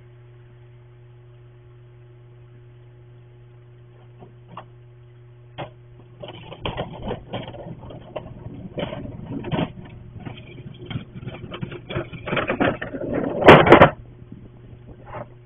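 Garbage bins being wheeled and handled on an icy driveway: irregular rattling, scraping and knocks that grow busier and end in a loud clatter near the end. It comes through a security camera's microphone over a steady low hum.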